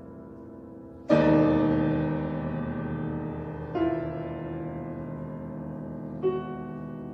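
Solo piano playing slow chords: a loud chord about a second in, then two softer ones, each left to ring and fade.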